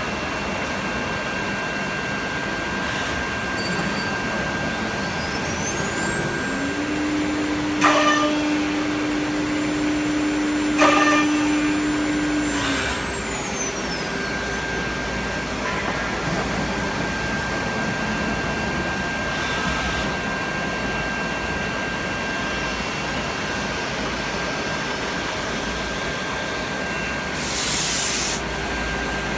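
ATC CNC router with a gang drilling head running, a steady machine noise with a high whine throughout. About six seconds in a spindle spins up, hums steadily with two sharp knocks, and winds down a few seconds later. A short hiss near the end.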